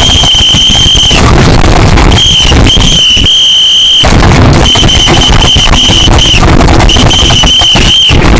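A shrill, steady high-pitched alarm tone, very loud and distorted. A long blast of about a second, after a short rise in pitch, is followed by two more blasts and then a run of short ones in quick succession.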